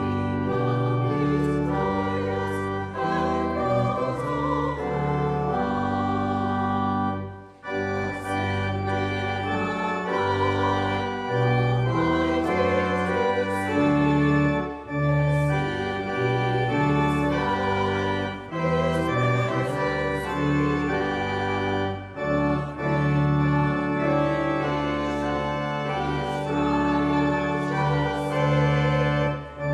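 Pipe organ playing a hymn in slow, held chords, with the congregation singing along. The music breaks off briefly about seven seconds in, then continues.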